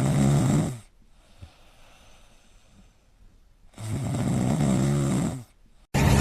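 A pet snoring loudly, with two long snores about four seconds apart and near quiet between them.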